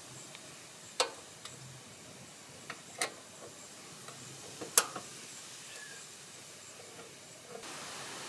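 Three sharp metallic clicks about two seconds apart, with a few fainter ticks between them: bolts and a nut driver knocking against the steel recoil-starter shroud of a Honda GX390 engine as the shroud bolts are started by hand.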